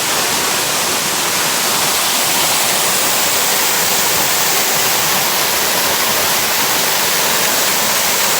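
Steady rush of a waterfall, falling water giving an even, unbroken hiss.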